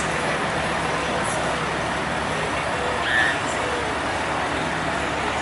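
Diesel semi truck running steadily as it pulls a livestock trailer away, with a brief high-pitched sound about three seconds in.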